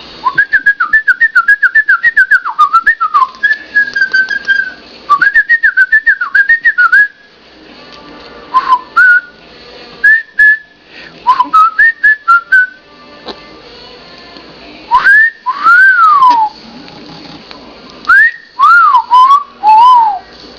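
Pet cockatoo whistling loudly: quick warbled runs of notes, then scattered short notes, then slower, longer whistles that swoop up and fall away.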